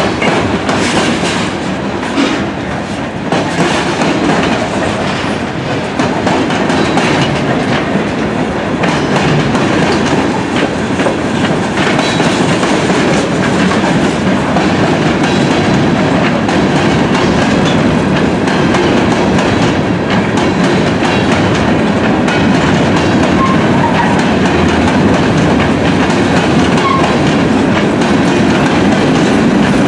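Freight train of covered hopper and tank cars rolling past: a steady rolling rumble of steel wheels with repeated clicks as they cross rail joints.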